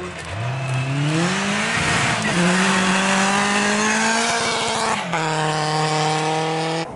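Rally car engine under hard acceleration. Its pitch climbs over the first two seconds, holds high for about three, then steps down about five seconds in.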